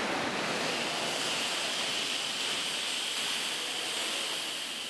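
Steady rushing and churning of choppy water in an indoor wave-tank training pool.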